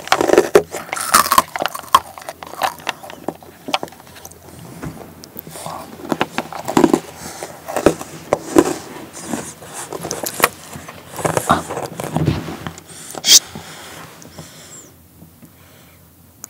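Close-miked clicks and crackles of fingers picking white-chocolate-coated freeze-dried strawberries out of a clear plastic tub. The clicks come in irregular clusters with one sharp snap a little after the middle, and they thin out near the end.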